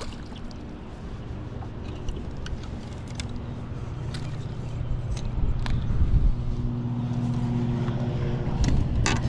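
A steady low motor hum that grows louder in the second half, with scattered light clicks and knocks as a crappie is reeled in on a spinning outfit and unhooked in the boat.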